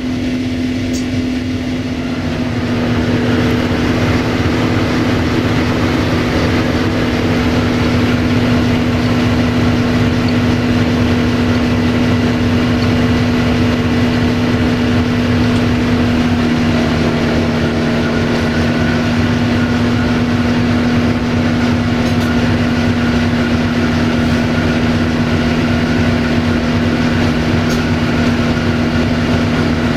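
Sulzer diesel engine of a 060-DA (LDE2100) diesel-electric locomotive heard from inside the cab, a steady drone that grows louder about two and a half seconds in, when a second, lower tone joins as the engine takes more power, then holds steady.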